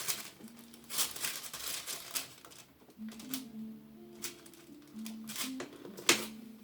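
Crinkling and rustling from movement on a treatment table, over soft background music with held notes. One sharp click or knock about six seconds in is the loudest sound.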